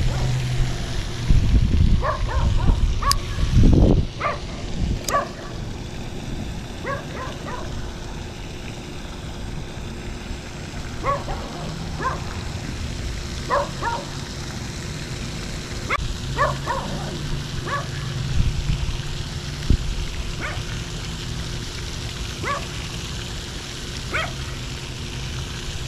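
A dog barking repeatedly, short single and double barks every second or two, with wind rumbling on the microphone during the first few seconds.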